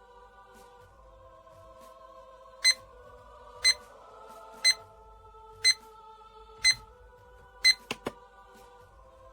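Digital alarm clock's alarm beeping: six short, high beeps, one a second, then two sharp clicks, after which the beeping stops. Soft background music plays underneath.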